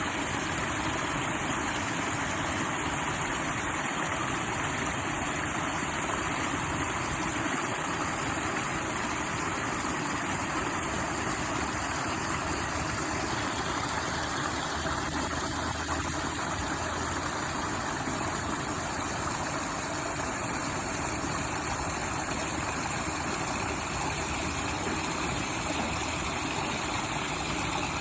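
Water flowing steadily, an even rushing sound with no breaks.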